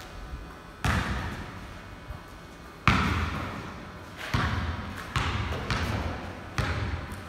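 Basketball bouncing on a concrete floor: about five separate, unevenly spaced bounces, each with a long echo in a large, bare garage bay.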